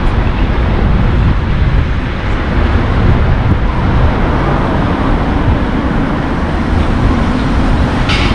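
Steady low rumble of a car driving along a paved street: tyre and wind noise, with a brief higher hiss near the end.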